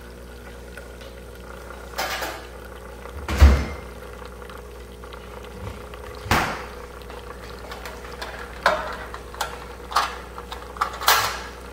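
Kitchen handling sounds as a raw turkey in a metal roasting pan is taken out of a refrigerator and set down on the counter. One heavy thump comes about three seconds in, then several sharper knocks and clanks of the pan, all over a steady hum.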